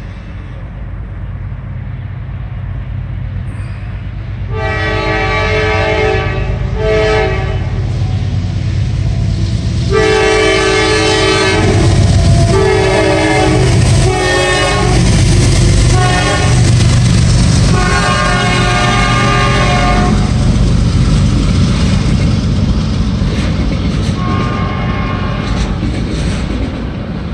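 Diesel freight locomotive's air horn sounding a series of long and short blasts as it approaches and crosses the road, over the rising rumble of its engine. After the last long blast, near the end, the autorack cars roll past with a steady rumble of wheels on rail.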